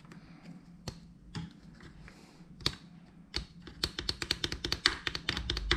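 Sharp clicks and taps of a ruler working soft, quick-setting filler on a helmet camera mount: a few scattered taps at first, then a rapid run of light taps over the last two seconds.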